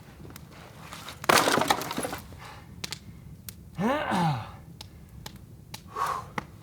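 Footsteps on dry ground, with a loud crack of dry wood breaking a little over a second in. A short creak that rises and falls in pitch follows around four seconds in.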